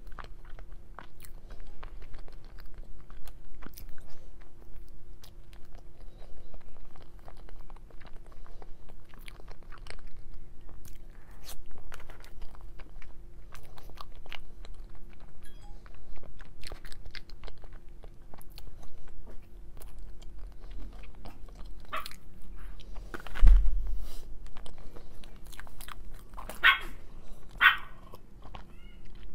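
Close-miked chewing of a soft matcha cake cube, with many small mouth clicks. Near the end there is a low thump, then two louder swallows of a drink.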